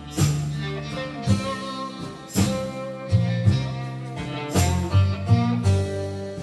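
Instrumental background music led by plucked-string notes, a new note struck every second or so.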